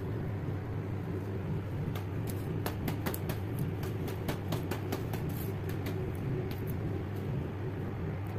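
A steady low mechanical hum, with a run of quick, light clicks from about two to six and a half seconds in.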